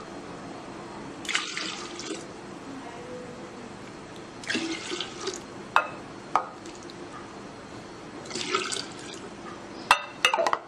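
Lassi poured from a jug into glasses in three short splashing pours, with a few sharp clinks of glass.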